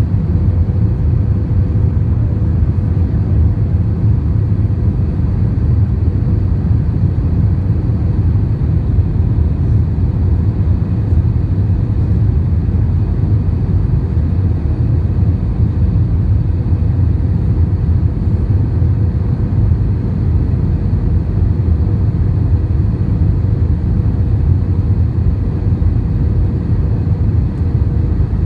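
Steady cabin noise inside an Airbus A321 descending on approach: a deep, even rumble of engines and airflow, with a faint steady hum over it.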